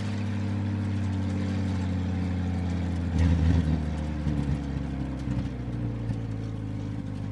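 Police jeep's engine running steadily as it drives on a dirt track and pulls up, with a louder rougher surge about three seconds in.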